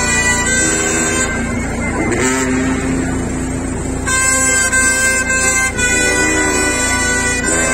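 Procession band of brass and woodwinds playing a slow funeral march, sounding long held chords that change every second or two.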